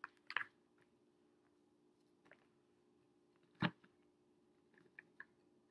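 Quiet room with a few faint, short clicks of eating with a plastic fork while chewing. The sharpest click comes a little past halfway, with two smaller ones near the end.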